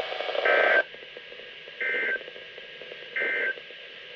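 NOAA Weather Radio's EAS/SAME end-of-message data signal: three short bursts of data tones, about one and a half seconds apart, marking the end of the Required Weekly Test broadcast. A radio hiss under the first burst cuts out when it ends.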